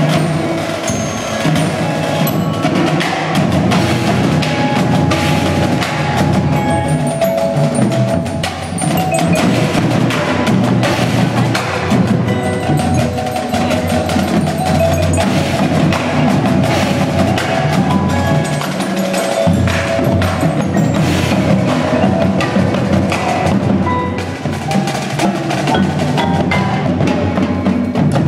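Indoor percussion ensemble playing: marimbas and other mallet keyboards with marching snare, tenor and bass drums, a dense, continuous mix of pitched mallet notes and rapid drum strokes.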